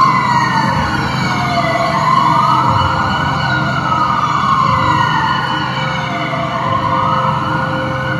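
Wailing siren sound effect played through a concert arena's sound system, several overlapping tones sliding slowly up and down, over a low steady drone.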